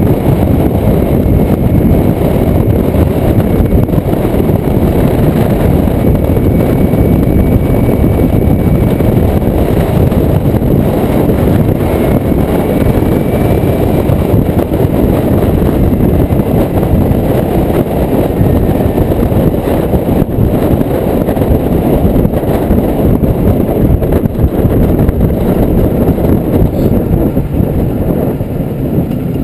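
Kawasaki Ninja motorcycle on the move: loud, steady wind rush on the microphone mixed with the engine running, easing off a little near the end.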